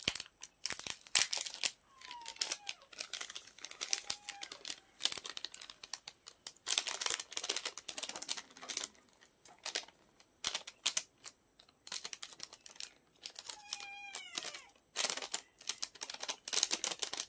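Plastic seasoning-mix sachet crinkling in the hands and being torn open, in a long run of irregular crackles. A few short falling calls from an animal come through around two and four seconds in and again near the end.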